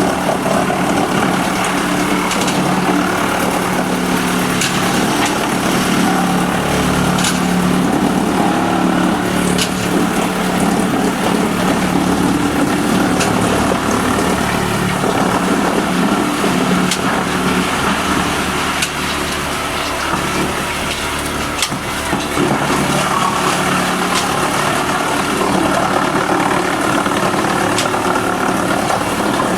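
Wood chipper running steadily under test, its engine humming, with scattered sharp cracks throughout. The level dips briefly a little past halfway.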